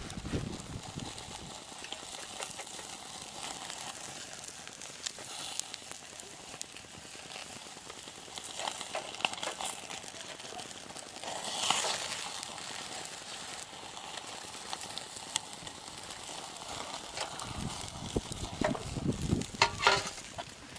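Food frying with a steady sizzle, with scattered clicks and knocks of utensils or cookware.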